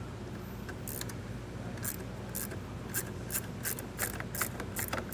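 Small hand ratchet with a 10 mm socket clicking as it loosens the battery post nut on a fuse plate: about a dozen short, sharp clicks at an uneven pace from about a second in, over a low steady hum.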